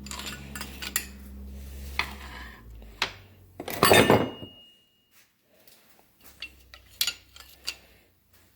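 Metal push rods from a VW Type 1 engine clinking against each other and the bench as they are drawn out and laid down one at a time. A louder clatter about four seconds in leaves a brief ringing tone, and a few lighter clinks follow.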